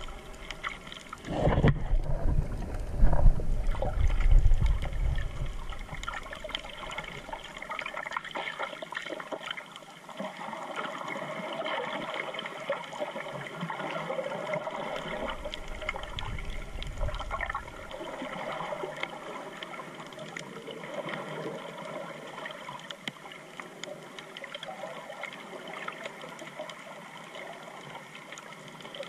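Underwater sound picked up through a GoPro's waterproof housing: a muffled wash of water with a constant faint crackle of tiny clicks. Loud low rumbling of water moving past the camera in the first few seconds and again briefly later on.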